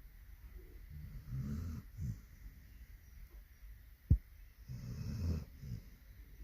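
Labrador retriever snoring in its sleep: two long, rough, low snores about three seconds apart, with a single sharp click between them.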